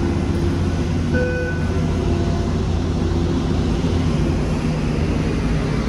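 Steady low rumble of heavy machinery running, with a short electronic beep about a second in.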